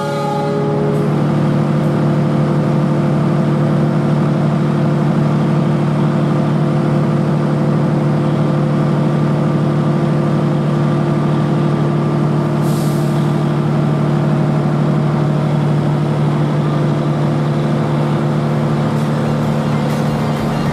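CC206 diesel-electric locomotive's engine running under power as the train pulls away, a loud, steady low drone. The horn's note ends just at the start, and a brief hiss of air comes about 13 seconds in.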